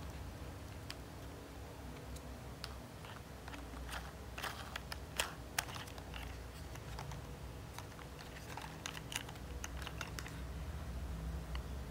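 Scattered plastic clicks and rattles from the parts of a take-apart toy dump truck being handled and fitted together. The clicks come thickest about four to six seconds in, with two sharper ones close together about five seconds in.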